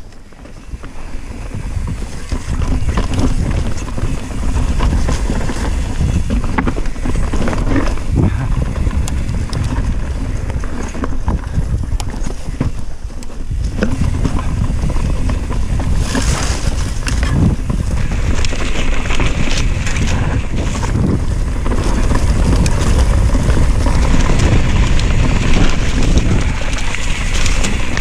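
Mountain bike descending a rocky dirt trail: steady wind rush on the microphone over the rumble of the tyres, with scattered clicks and knocks as the bike rolls over rocks. The sound gets louder and hissier about halfway through.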